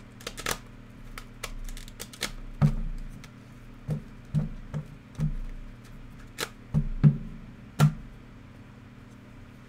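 A stack of trading cards in plastic sleeves being handled and squared up: a dozen or so irregular taps and clicks, each with a dull knock, stopping about eight seconds in.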